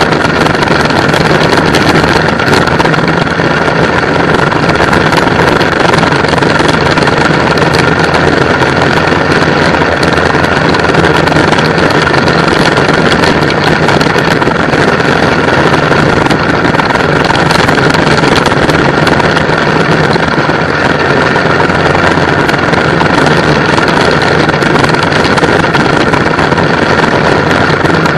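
Go-kart engine running loud and steady while racing around the track, heard from a camera mounted on the kart, with wind rushing past.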